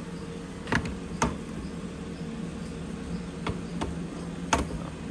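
A steady low electrical hum with about five short, sharp clicks and taps, the loudest near the end.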